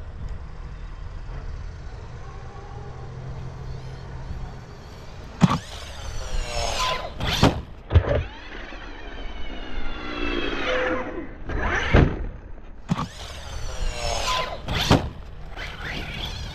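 An ARRMA RC basher truck's brushless motor whines from about five seconds in, its pitch climbing and falling as the truck accelerates and slows in several runs. Several sharp knocks come from the truck hitting the ground.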